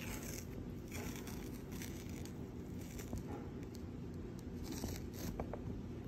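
Paper liner being peeled back from the frozen surface of a pint of ice cream, in several short papery tearing and rustling bursts.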